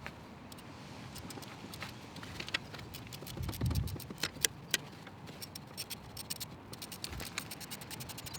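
Quarter-inch hand ratchet clicking in short runs as the manifold nuts are worked, with light metal clinks of tools, a low thud about three and a half seconds in, and a quicker run of clicks near the end.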